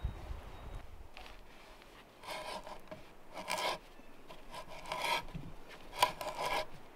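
Hand auger's spiral bit boring into a wooden plank, rasping as it shaves the wood. Starting about two seconds in, there are four rasping strokes a little over a second apart, one with each turn of the auger.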